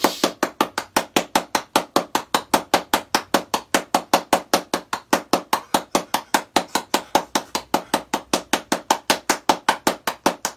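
Rapid, steady handclapping, about five even claps a second.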